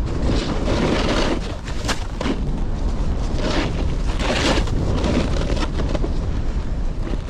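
Wind rumbling steadily on the microphone of a snowboarder's POV camera, with several swelling hisses of the snowboard's edge carving and scraping over snow.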